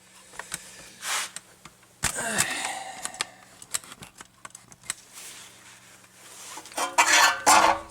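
Hand tools clicking, clattering and scraping on metal brake parts, with a brief falling ring about two seconds in and a few loud rasping strokes near the end, as paint residue is cleaned off the brake parts.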